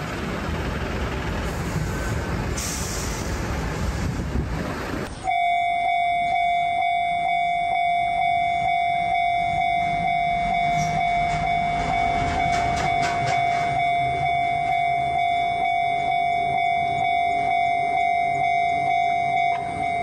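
Japanese level-crossing alarm ringing: a steady pitched electronic "kan-kan" tone pulsing in even, rapid strokes, cutting in abruptly about five seconds in. Before that there is a steady rumbling noise.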